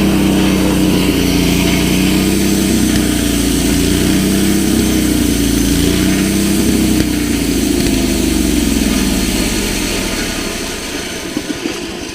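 An engine running steadily, its pitch drifting slightly up and down, then fading away over the last few seconds.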